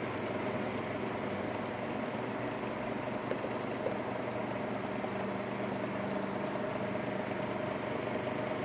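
A few light clicks of keys being pressed on a Microsoft Surface Go 2 Type Cover keyboard, over a steady background hum.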